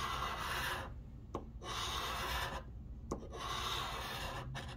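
Scratch-off lottery ticket being scratched with a small scraper: three long scraping strokes across the coating, with a light tap before the second and the third.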